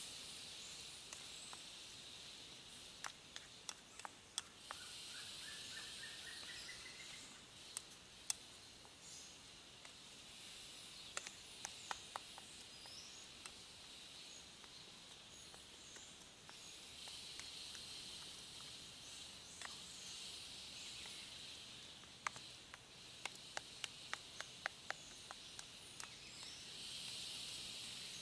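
Spoon clicking and scraping against the sides of a metal camp pan while stirring, in short clusters of clicks, over a steady insect drone that swells and fades in waves. A bird calls with a rising run of short notes about five seconds in.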